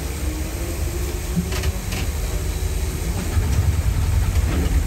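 Safari tram running, a steady low rumble with a few faint clicks about a second and a half in, growing slightly louder in the second half.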